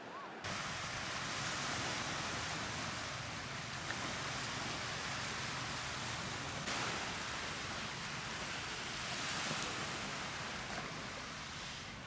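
Seaside ambience: a steady rushing hiss of wind and small waves on a sandy beach, starting about half a second in.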